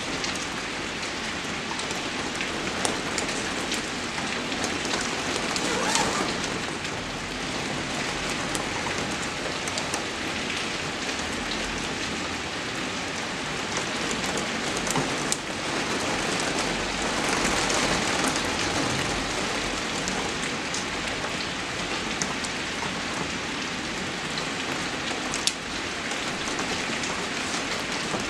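Steady rain falling, an even hiss dotted with sharp individual drop splats, swelling slightly about two-thirds of the way through.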